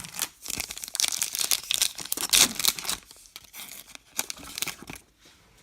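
Crinkling and crackling of trading-card packaging being handled, dense for about three seconds, then a few shorter crinkles.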